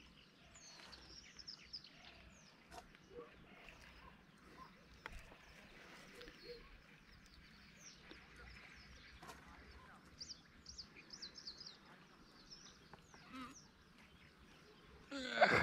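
Faint birdsong: short high chirps and calls scattered through, thickest about two-thirds of the way in, with a few small ticks. A louder sound starts right at the end.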